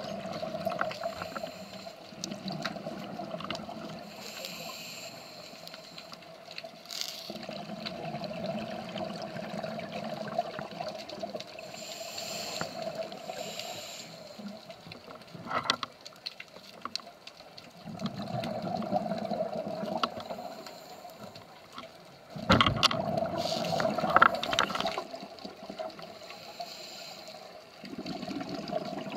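Scuba diver breathing through a regulator, heard underwater: short hissing inhalations alternate with longer rumbling, bubbling exhalations, several times over a steady hum. The loudest exhalation comes about three-quarters of the way through.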